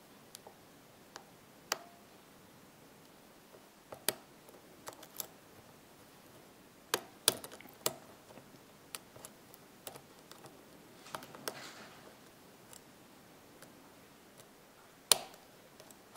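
Irregular, sharp small metal clicks of a hook pick and tension wrench working the pins of a MU (Møller Undal) six-pin cylinder lock with serrated driver pins, being single-pin picked; the two loudest clicks come about seven and fifteen seconds in, with a short soft rustle around eleven seconds.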